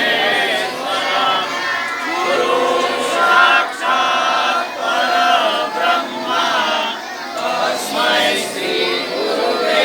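Large group of children singing a prayer together in unison.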